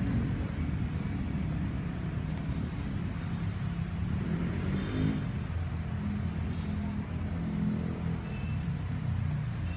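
Road traffic: motor vehicle engines running, a steady low rumble.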